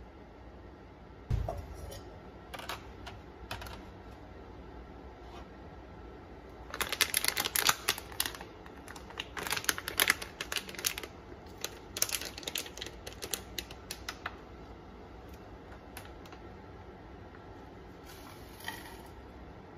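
A plastic bag of brown sugar crinkling and crackling in the hands as it is torn and worked open, in dense bursts of crackles from about seven to fourteen seconds in. A single dull thump about a second in.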